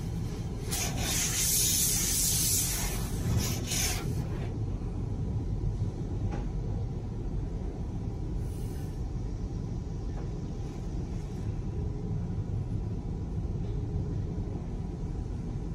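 Car wash water spray hitting the car's windshield and body, heard from inside the cabin: a loud hiss from about one to four seconds in and a brief one later, over a steady low rumble from the wash tunnel.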